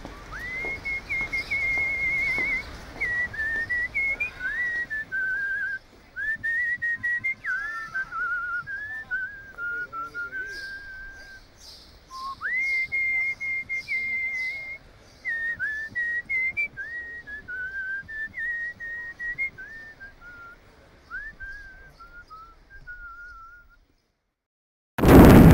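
A person whistling a solo melody in two similar phrases with a short break between them. A sudden loud noise breaks in right at the end.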